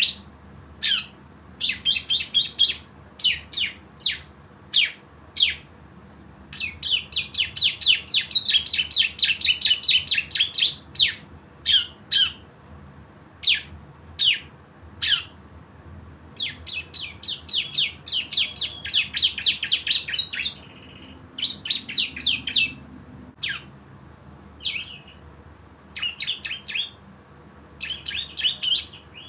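A cisem, a ciblek (prinia) songbird, singing. It gives sharp, high, down-slurred chips, some singly and some in fast rattling runs of about ten notes a second: the bursting 'ngebren' song.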